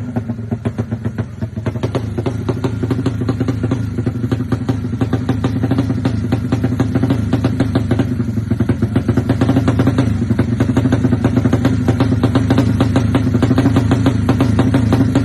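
Yamaha Jupiter motorcycle's single-cylinder SOHC four-stroke engine, built up to 200 cc, idling with a rapid, even exhaust beat; it gets a little louder after about two seconds.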